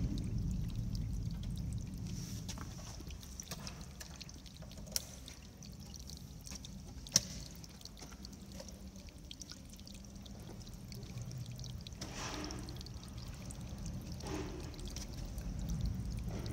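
Water pouring and trickling from a pipe into a pit of sand, over a steady low rumble. Two sharp clicks come about five and seven seconds in.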